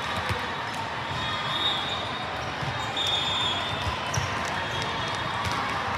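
Balls bouncing on a hard gym floor, as scattered dull thuds over the steady hubbub of a busy sports hall.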